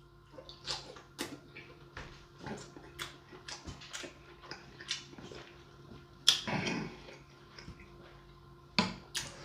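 Close-up eating sounds of a person eating king crab: a run of short, irregular clicks and smacks from chewing and mouth noises, with a louder, longer smack about six and a half seconds in and another near the end.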